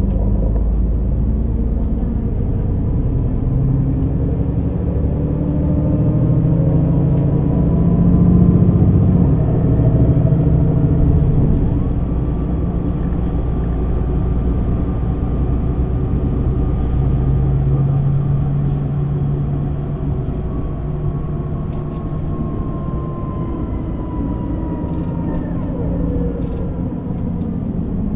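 MAN NÜ 280 city bus's diesel engine running under way, pulling harder and rising in pitch to a peak, then easing off to a lower, steadier note. A faint high whine rises and then falls away.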